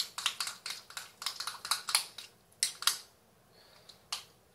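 Spoon clicking and scraping against a small bowl while stirring a thick cream cheese and lemon juice mixture, in quick strokes at about four a second. The stirring stops about three seconds in, leaving a couple of single knocks.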